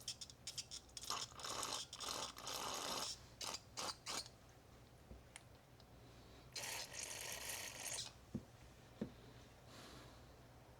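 Aerosol spray can hissing in several short bursts, then a longer burst about seven seconds in, as cleaner is sprayed through a clogged lawn mower carburetor passage.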